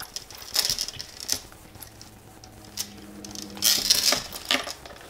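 Light clicks and rustling from handling a small clutch bag and the cards and small items being tucked into it, in two short bursts about a second in and again near four seconds in.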